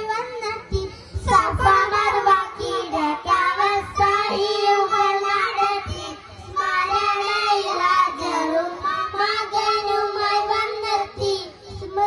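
A group of young boys singing a Mappilapattu, a Malayalam Muslim folk song, in unison into microphones, with a short pause between phrases about six seconds in.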